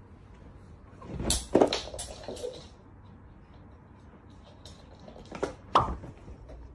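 A few sharp knocks and clatters, with a cluster about a second in and two more knocks around five and a half seconds in.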